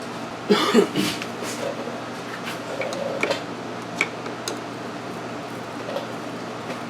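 Hands working on a car's plastic air-conditioning box: rustling and knocking about half a second in, then a handful of sharp clicks and taps over the next few seconds. A steady hum runs underneath.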